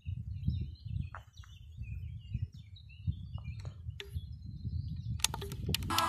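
Outdoor ambience: a low wind rumble with faint, scattered bird chirps. A quick cluster of sharp clicks and crackles comes about five seconds in.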